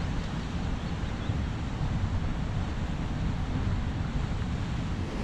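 Steady rushing of a waterfall and river, with wind buffeting the microphone.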